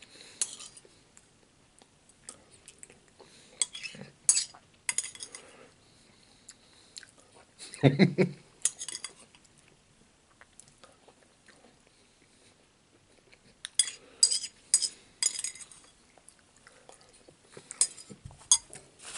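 A metal spoon clinking and scraping against a ceramic bowl while eating, in short scattered bursts with quiet gaps between. One louder thump about eight seconds in.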